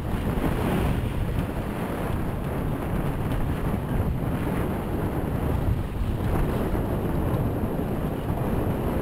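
Steady wind buffeting the microphone, with water rushing along the hulls of a Magnum 21 sailing catamaran under way.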